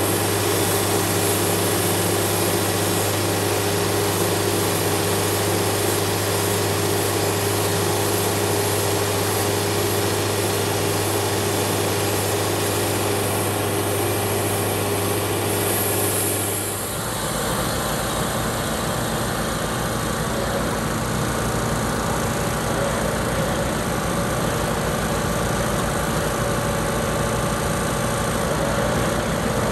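Portable bandsaw sawmill's engine running steadily while the mill saws through a log. About two-thirds of the way in the sound changes suddenly to a different steady engine sound, the mill and a compact track loader running side by side.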